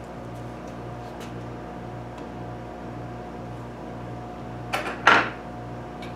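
Two quick metallic clatters about five seconds in, the loudest sounds, as the sanding belt and steel parts of a homemade 2-inch belt grinder are handled, over a steady low hum with a slow pulse.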